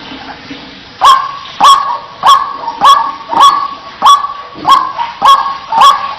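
White-breasted waterhen (ruak-ruak) calling in a rapid, even series: about nine short, sharp notes, each rising quickly in pitch, nearly two a second, starting about a second in.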